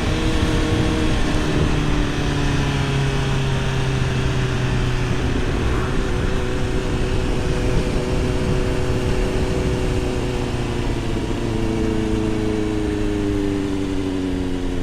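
Motorcycle engine running with wind rushing over a helmet-mounted microphone while riding. The engine note falls slowly, as when the bike eases off.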